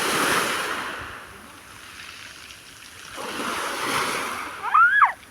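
Small sea waves washing in twice, each swelling and fading away. Near the end comes a short high-pitched cry that rises and falls.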